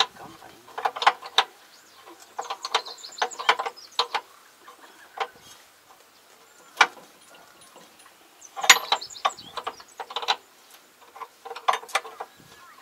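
Hand tools working on the tractor's crawler track: irregular clusters of sharp metallic clicks and clinks, like a wrench or ratchet being worked on bolts.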